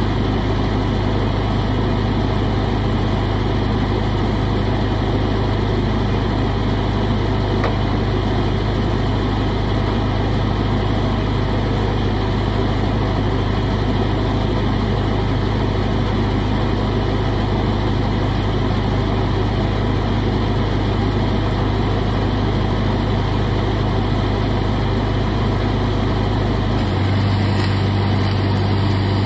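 Lincoln SA-200 engine-drive welder's four-cylinder gasoline engine running steadily; the machine is called rattly. About 27 seconds in, its sound changes as an aluminum MIG arc is struck again and the engine takes the welding load.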